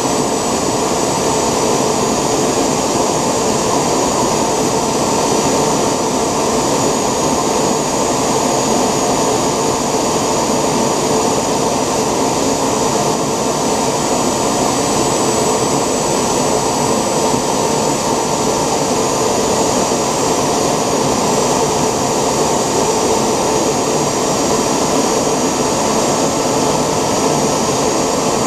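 Homemade 3D-printed gas turbine (model jet engine) running steadily at constant speed: a loud, even rush of exhaust with high turbine whines held at one pitch.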